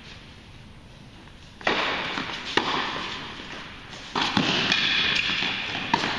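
Tennis balls struck by racquets in a doubles rally: four sharp hits over about four seconds, the first about a second and a half in, each ringing on in the echoing indoor hall.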